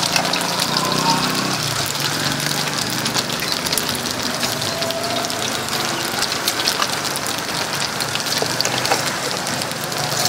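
Hot oil sizzling in a large pot as pieces of food deep-fry: a steady hiss sprinkled with many small quick pops.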